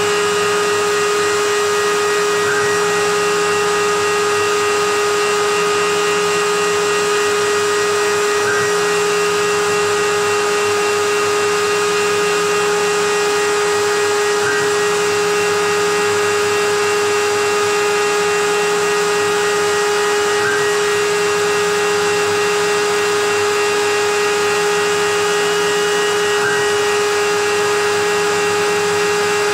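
CNC router spindle running with a steady high whine over the steady rush of the cyclone-vacuum dust extraction, with a faint brief tick about every six seconds.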